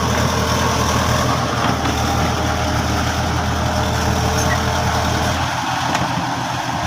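Bulldozer's diesel engine running steadily with a deep, even hum. The lowest part of the hum drops away about five and a half seconds in.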